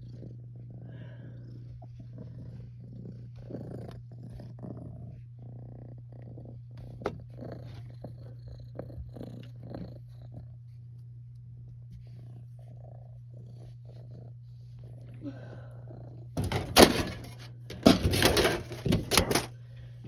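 Domestic cat purring steadily, with soft bumps and rustles of movement. About sixteen seconds in, a few seconds of loud rustling and clattering.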